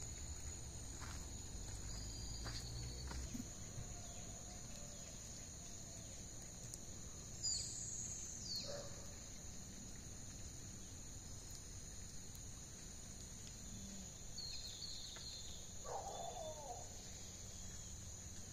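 Steady high-pitched drone of insects, with a few bird calls over it: a sharp falling chirp about eight seconds in and a lower call near sixteen seconds.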